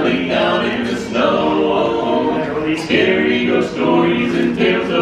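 Barbershop quartet singing a Christmas song in close four-part a cappella harmony, all men's voices.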